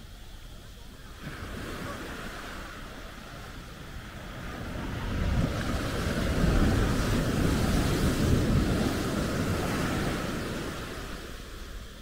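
Ocean surf breaking and washing up the sand at the water's edge, swelling to its loudest in the middle and fading away near the end.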